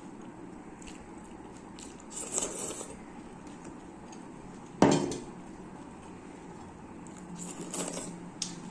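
Hand scraping a stainless steel plate clean, with a tissue rustling twice and one sharp metallic clink of the plate about five seconds in.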